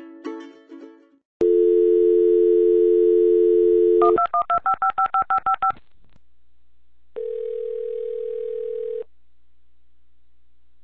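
A plucked-string music tail fades out in the first second. Then a landline dial tone comes on through the analog modem for about three seconds, followed by a fast run of about ten touch-tone (DTMF) digits as it dials. After a short pause one ringback tone sounds for about two seconds: the called line is ringing.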